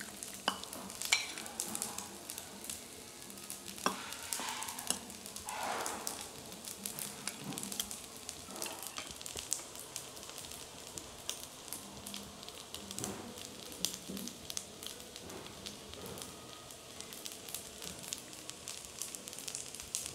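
Hot food sizzling and crackling steadily. In the first few seconds a metal ladle clinks and scrapes against a stone pot and a porcelain bowl as soup is served.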